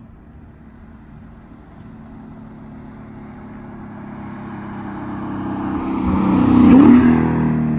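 Lexus IS F's 5.0-litre V8 through an X-Force cat-back exhaust with stock headers, in a flyby at steady throttle. The engine note grows steadily louder as the car approaches, is loudest as it passes close by about seven seconds in, and drops in pitch as it goes past.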